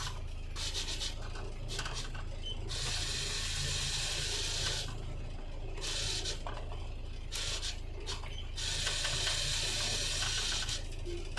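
Water rushing and splashing along a boat's hull in several surges of hiss, each a second or two long, over a steady low hum.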